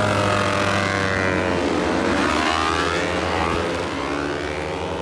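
Several racing motorcycles' engines going by on the track, their pitch falling as they pass and then climbing again as they accelerate away.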